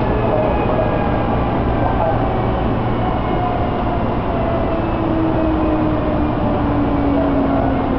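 Electric commuter train running, heard from inside the passenger car: a steady rumble of wheels on rail, with a faint motor whine that slowly falls in pitch.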